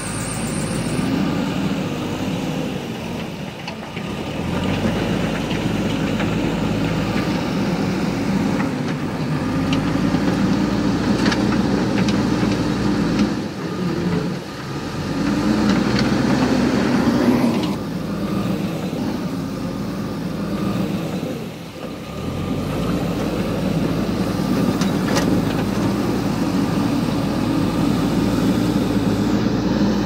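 JCB backhoe loader's diesel engine running under load, its pitch rising and falling as it works, easing off briefly three times. A few sharp knocks stand out over the engine.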